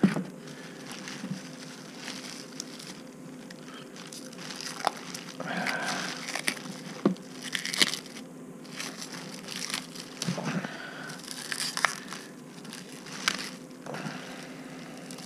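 Packaging being pulled and unwrapped by hand: irregular crinkling and rustling with scattered sharp clicks and crackles, over a faint steady hum.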